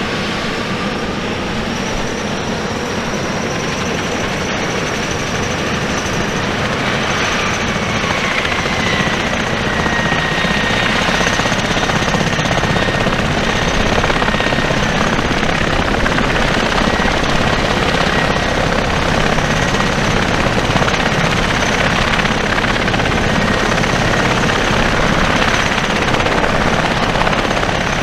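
US Air Force CV-22 Osprey tiltrotor running, its twin Rolls-Royce turboshaft engines and proprotors making a loud, steady noise. A high turbine whine dips in pitch about a third of the way in, then holds as the noise grows slightly louder.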